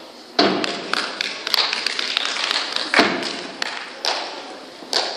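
Dancers' feet stamping and stepping on a stage floor: a few heavy stamps, the loudest about three seconds in, with lighter irregular taps between them, each ringing briefly in the hall.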